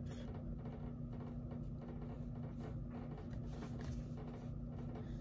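Faint scratching of a cotton swab being rubbed over leather to work rubbing alcohol in, over a steady low hum.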